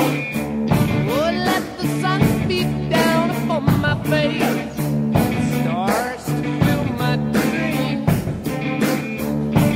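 Rock music with a steady drum beat, bass and a bending lead guitar line, with some singing.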